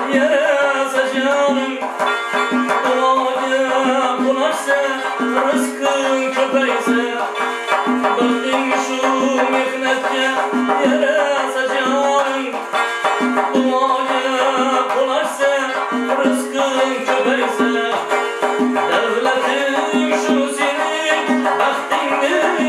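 A man singing a melodic song to a plucked tar, a long-necked lute with a double-bowl body, with hand-drum percussion keeping a steady rhythm.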